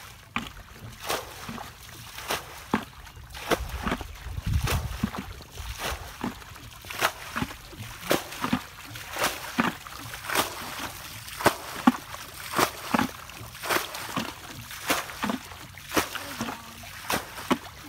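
Plastic bucket scooping and flinging muddy water out of a shallow pond, a steady run of splashes about one or two a second, as the pond is bailed out by hand.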